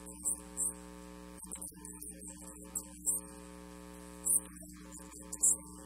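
Steady electrical mains hum from a microphone and sound system, with several short bursts of high hiss.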